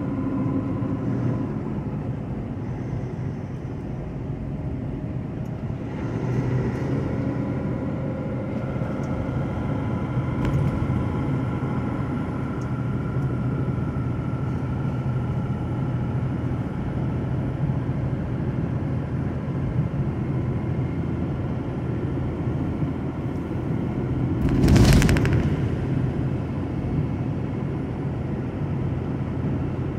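Semi truck's diesel engine and road noise droning steadily inside the cab while cruising. Near the end there is one brief, loud rush of noise.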